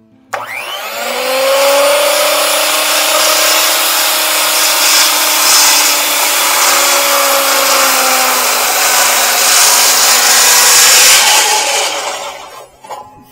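Circular saw spinning up and cutting through a stack of clamped timber treads, making deep tenon shoulder cuts. The motor rises in pitch as it comes up to speed, then runs with a steady tone under the cutting noise for about twelve seconds, and dies away near the end.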